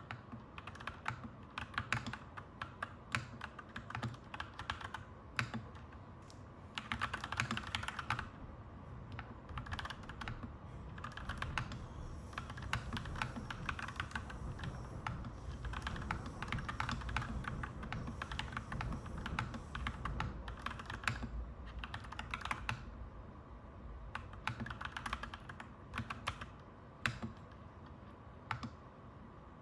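Clacky mechanical keyboard typing in quick runs of keystrokes, broken by short pauses. A low background rumble swells and fades through the middle.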